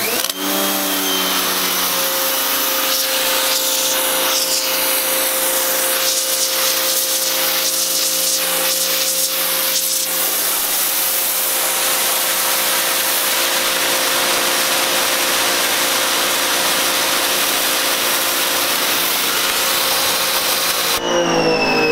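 Giraffe Tools Grandfall electric pressure washer running with the 0-degree nozzle: the pump motor hums steadily under the loud hiss of a pencil-thin water jet blasting concrete. About 21 seconds in the trigger is released, the hiss stops and the motor winds down in falling pitch.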